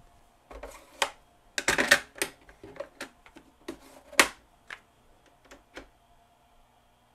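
Mechanical clicks and clunks from a Panasonic RS-270US cassette deck's piano-key transport buttons, eject and cassette door as the cassette is taken out. It is a run of sharp, separate clicks over about five seconds, with the loudest clunk about four seconds in.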